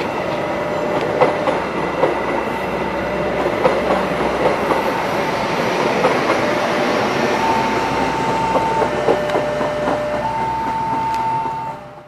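A train of stainless-steel passenger coaches passing close at speed, a steady rush with wheels clacking over the rail joints. Several long high-pitched squeals come in the second half, and the sound fades out at the very end.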